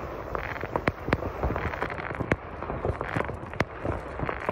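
Firecrackers going off: an irregular string of sharp cracks over a continuous crackle.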